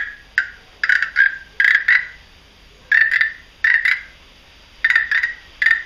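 Short, high-pitched frog-like croaks, mostly in quick pairs, repeating roughly once a second with brief pauses between.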